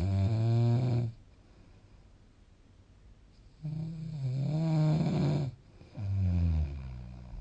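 A sleeping person snoring: a pitched, rattling snore that ends about a second in, then two more, the second beginning halfway through and the third following it closely near the end.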